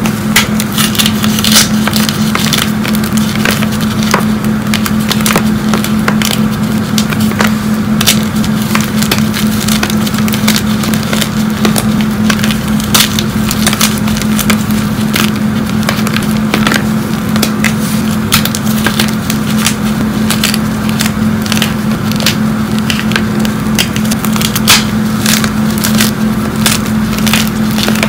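Fresh, hard blocks of gym chalk being squeezed and crumbled by hand, giving a dense, irregular run of crunches and crackling snaps. A steady low hum runs underneath.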